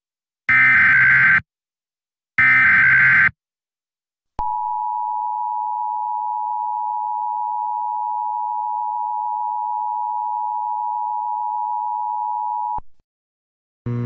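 Emergency Alert System alert: two short, shrill electronic SAME header data bursts, each just under a second long, then after a pause the EAS attention signal, a steady two-tone beep (853 and 960 Hz) held for about eight seconds that cuts off suddenly.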